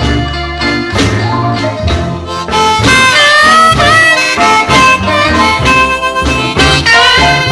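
Blues music with a harmonica carrying the lead, its held notes bending and wavering over a band accompaniment.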